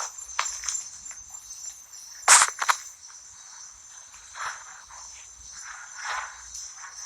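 Insects chirping steadily in a high chorus, with intermittent rustling and a sharp click about two seconds in.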